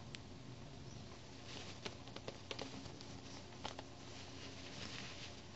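Faint rustling of fabric being handled, with a few light clicks near the middle, as a strap is hand-sewn onto a small cloth bag and the bag is handled.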